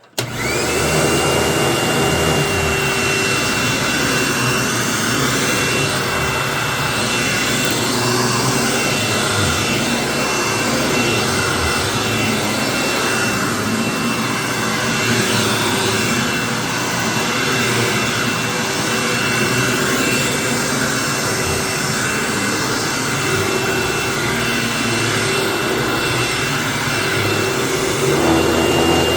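A Hoover WindTunnel upright vacuum cleaner starts up, its motor whine rising quickly to a steady high tone, and runs on high-pile carpet. The round wooden brush roll is a little out of balance and gives a profound vibration. The motor winds down at the very end.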